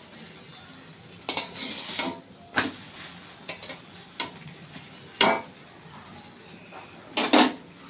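Pots, dishes and cooking utensils clattering as they are handled and set down: a few separate clanks and knocks, the loudest about five seconds in and a quick double clatter near the end.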